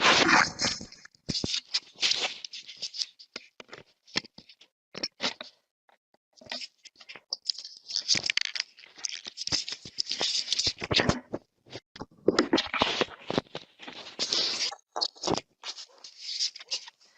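Irregular scraping, rubbing and clicking right against a doorbell camera's microphone, in uneven spells with short gaps: handling noise from the camera being grabbed and moved about.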